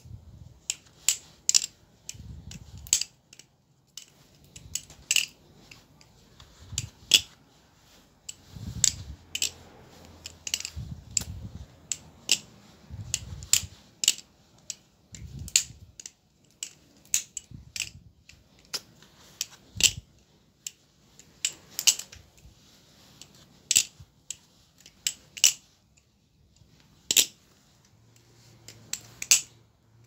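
Kraken-clone balisong (butterfly knife) being flipped: an irregular run of sharp metallic clicks and clacks, about one to three a second, as the handles swing around and snap shut against each other. The knife is offered as one with no rattle and no tap.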